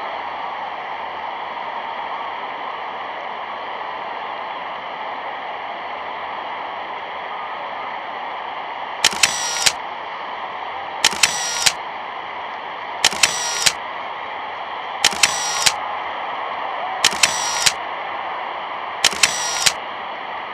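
Steady hiss of an old newsreel soundtrack with no commentary. From about nine seconds in, a short burst of three sharp clicks comes six times, one every two seconds, louder and brighter than the hiss.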